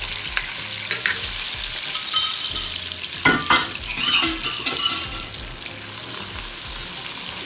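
Onions and whole spices frying in hot ghee in a pan: a steady sizzle, with a spoon stirring and scraping against the pan a few times.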